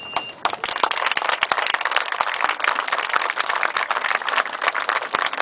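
Audience applauding: many people clapping together, starting about half a second in.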